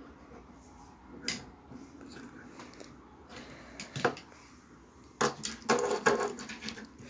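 Die-cast toy cars handled and set down on a wooden tabletop: a knock about a second in, a click at about four seconds, and a quick flurry of clicks and rattles between five and six and a half seconds.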